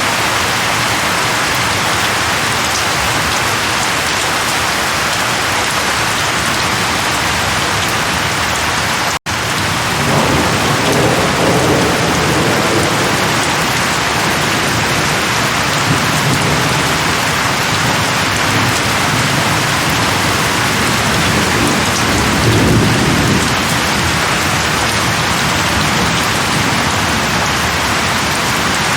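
Steady heavy rain falling on leaves, with low rumbles of thunder rolling in about ten seconds in and again past twenty seconds. The sound cuts out for an instant just before the first rumble.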